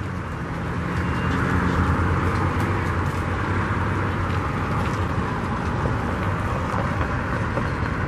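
Steady road traffic noise, a continuous rumble and hiss of passing vehicles.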